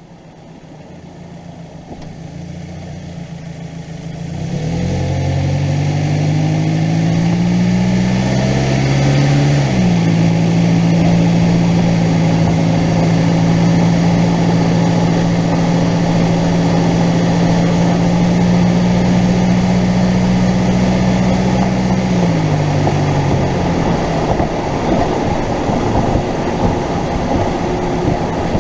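Ford Focus driving, heard from inside the car. The engine note climbs as it accelerates, drops once near a third of the way in, holds steady while cruising, then falls away about three quarters through, leaving rougher road rumble with uneven low knocks. The knocks fit the clunk of a worn ball-and-cup joint in a front sway bar end link.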